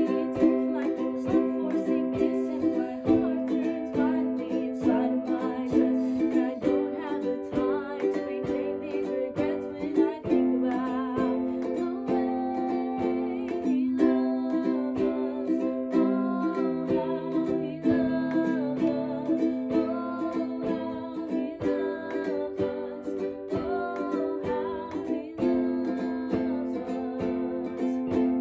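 Ukulele strummed in steady chords, with a voice singing a song along with it.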